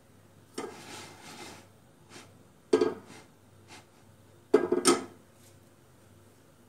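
A frying pan being moved and set down on a gas hob's grate: a softer scrape, a sharp knock about three seconds in, then a quick cluster of clattering knocks near the five-second mark, the loudest of the lot.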